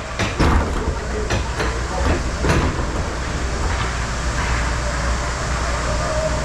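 Ice rink play: a steady low arena rumble with half a dozen sharp clacks in the first few seconds, from sticks, puck and skates on the ice, then only the rumble.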